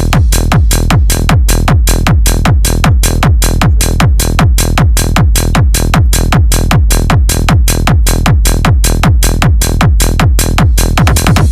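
Electronic dance music with a fast, steady beat of about four beats a second. It switches abruptly to a different pattern at the very end.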